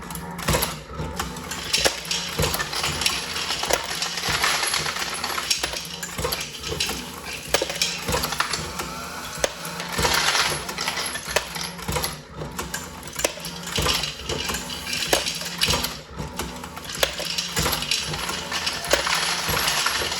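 Dillon RL1100 progressive reloading press running on its Mark7 AutoDrive, loading 9mm: continuous metallic clinking of brass cases and cartridges over a steady low motor hum.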